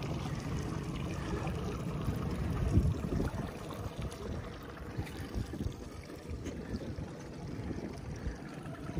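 Small fishing boat on the water: a steady wash of water noise, with a few low knocks against the boat about three seconds in.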